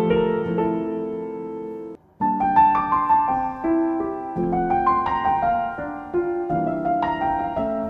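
Solo piano background music, a melody over sustained notes. The music cuts out for a moment about two seconds in, then resumes.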